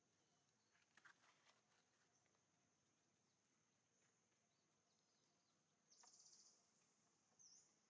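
Near silence: faint outdoor ambience with a steady high-pitched hiss, a few soft clicks about a second in, a short buzzy trill about six seconds in and a brief chirp near the end.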